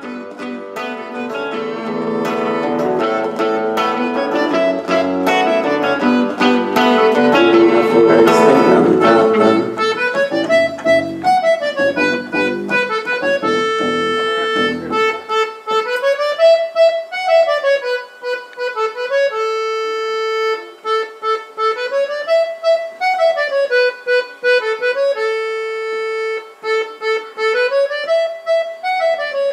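Live acoustic band music: guitars, double bass and accordion playing together. Over the middle stretch the rest of the band drops away, leaving the accordion alone playing a repeating rising-and-falling phrase with long held notes.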